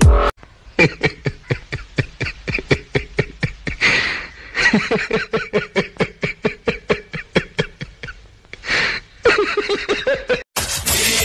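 Hearty laughter from a single voice: a long run of quick, even 'ha-ha' pulses, about four or five a second, broken twice by a breath in, about four and nine seconds in. Music cuts in sharply near the end.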